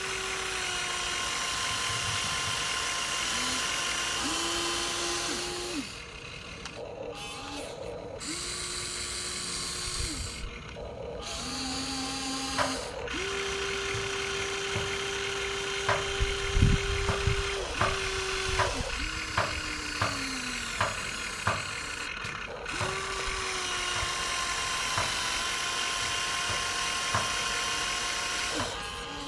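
Small electric motors and gearboxes of a Huina RC toy excavator whining in short runs of a second or several, starting and stopping as it is driven, some runs sagging in pitch as they end. Through the middle comes a series of sharp clicks, about two a second.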